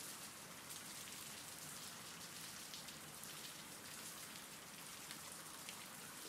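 Rain-sound ambience: soft, steady rain falling, an even patter with faint scattered drop ticks.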